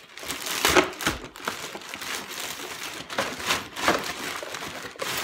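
A white shipping wrapper being opened by hand: crinkling and rustling in uneven spells, loudest about a second in and again around three to four seconds in.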